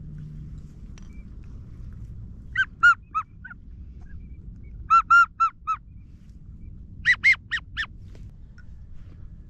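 Geese honking overhead in three short bursts of three to five calls each, over a steady low rumble.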